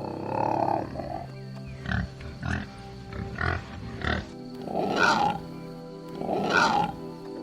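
Pig grunting, with two longer, louder squealing calls near the middle and end, over background music.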